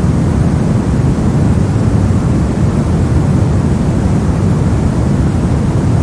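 Steady soft white noise for sleep: an even, deep rushing hiss, heaviest in the low range and thinning toward the top, with no change or events.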